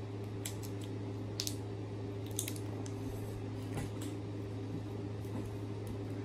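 Scattered light clicks and crinkles from handling and eating gummy candy, over a steady low hum.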